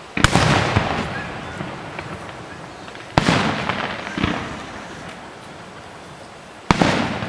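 Aerial fireworks shells bursting: three loud booms about three seconds apart, each followed by smaller pops and a fading rumble.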